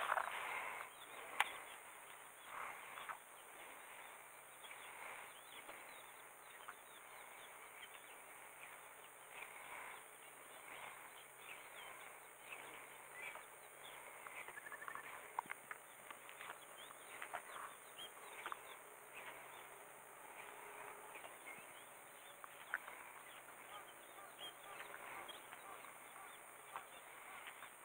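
Faint outdoor ambience with scattered small bird chirps and a few short, sharp clicks.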